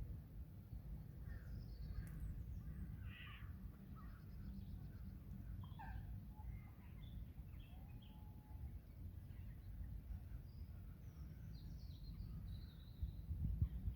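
Outdoor pond ambience: scattered bird calls and song, with crows cawing, over a steady low rumble.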